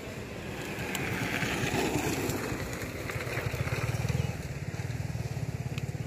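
A small engine running steadily, a low rapid pulsing that grows louder about three to four seconds in, then eases.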